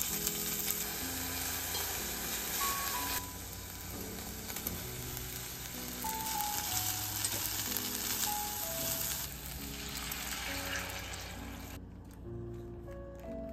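Sliced pork shoulder sizzling in hot oil in an enameled cast-iron pot, then taro chunks stirred in with chopsticks as it keeps sizzling; the sizzling stops about twelve seconds in, when water goes in. Soft background music plays underneath.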